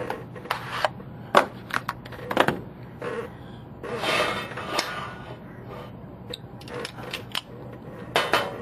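Irregular sharp clicks and clacks from a butterfly knife and a balisong comb being handled, their metal handles and latches knocking together, with a short rustle about four seconds in.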